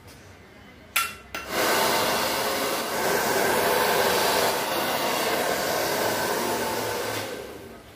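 A small electric appliance switched on with two clicks, then running with a loud, steady rushing noise for about six seconds before it winds down.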